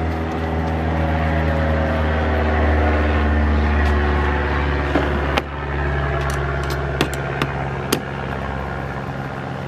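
A steady motor or engine hum drones throughout, dipping a little in pitch about five and a half seconds in. Over it come a few sharp metallic clicks of a screwdriver and screws on the kayak's stabilizer mount, between about five and eight seconds in.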